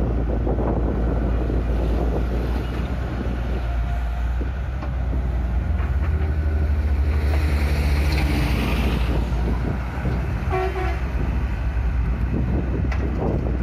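Sumitomo hydraulic excavator and dump truck diesel engines running with a steady, deep rumble. Between about six and nine seconds in, the engine swells and a hissing rush is heard as a bucketful of sand is dropped into the truck's steel bed. A brief horn-like tone sounds near the end.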